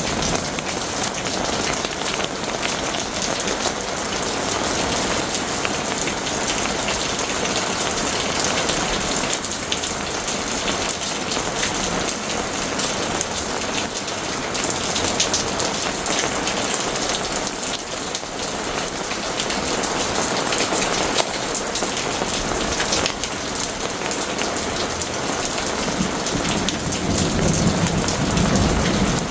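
Heavy rain falling steadily in a thunderstorm, with a low rumble of thunder building near the end.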